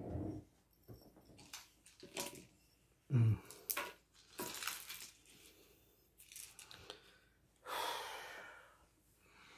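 Quartz crystals being handled and set down on a crystal grid: scattered small clicks and knocks, with a low thump about three seconds in. A breathy hiss lasting about a second comes near the end.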